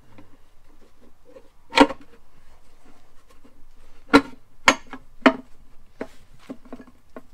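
Sharp metal knocks as a transfer case half is worked down onto the other half over the input shaft and chain. One loud knock comes about two seconds in and three more follow close together a little past four seconds, then lighter taps near the end, over quiet handling clinks.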